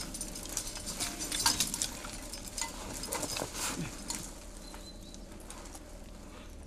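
Scattered clicks, knocks and rustles from a climber moving up a snowy rock face through bare branches, thinning out after about four seconds to a faint steady hiss.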